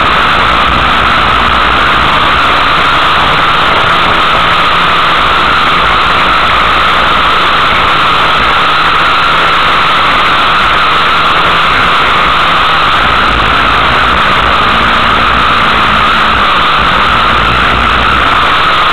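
Racing car's engine running hard, heard from inside the car: a loud, steady mix of engine and rushing wind noise with no break, the engine's pitch only faintly shifting under it.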